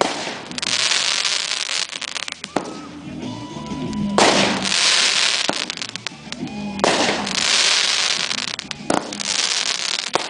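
A 350-gram consumer firework cake, Enigma by Cannon Fireworks, firing shot after shot. Each shot is followed by about two seconds of dense crackling as its stars break, three times, with another starting near the end.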